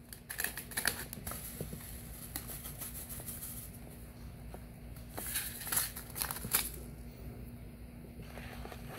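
A paper seed packet crinkling and rustling as it is handled and shaken to tip seeds into a palm, in short bursts near the start and again past the middle.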